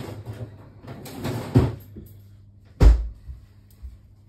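Kitchen handling noises: rustling and scraping, then a single sharp knock about three seconds in, like something set down hard or a cupboard or door shutting.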